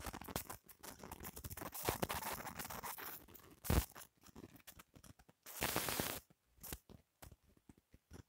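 Irregular scratching and rustling with scattered clicks, like something rubbing against the microphone, with a sharp thump about four seconds in and a louder burst of rustling near the end.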